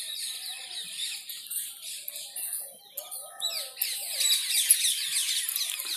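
Many small birds chirping together: a dense, continuous chorus of short, high chirps.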